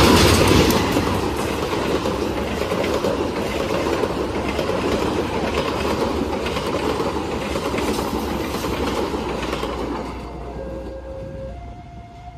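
KAI CC201 diesel-electric locomotive and its passenger coaches passing close by at speed without stopping. It is loudest as the locomotive goes by at the start, followed by the steady running noise and wheel clatter of the coaches, which eases off after about ten seconds as the end of the train passes. In the last couple of seconds a level-crossing alarm alternates between two notes.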